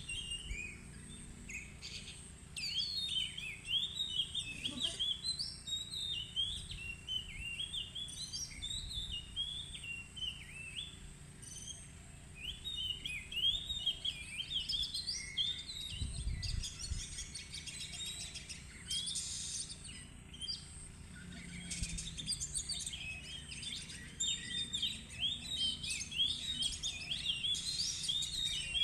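Oriental magpie-robin singing a long, varied song of quick rising and falling notes, in phrases broken by short pauses.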